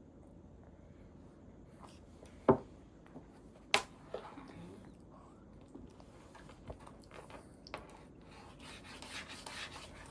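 Sharp taps while a baby is spoon-fed weaning food, as a spoon knocks against a bowl: two loud ones about a second apart, then a few softer clicks and a brief soft rustle near the end.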